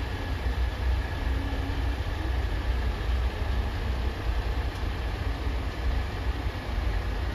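Heavy engines running with a steady low rumble, and a faint steady high whine over it.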